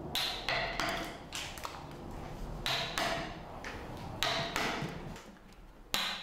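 A metal hammer striking a wood-carving chisel as a seated Buddha is roughed out of a wooden block: sharp taps in short runs of two or three, each with a brief metallic ring, with short pauses between runs.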